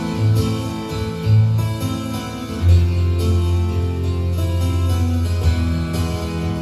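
Roland keyboard playing a demo patch from an Indian sound package: a plucked-string-like melody over held bass notes, with a deep bass note coming in about two and a half seconds in.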